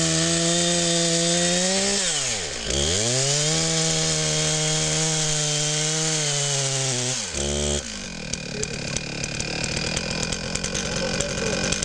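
Chainsaw running at high revs while cutting into a thick tree trunk. The revs dip and pick back up about two and a half seconds in. About two-thirds of the way through, the steady engine note gives way to a rougher, crackling sound.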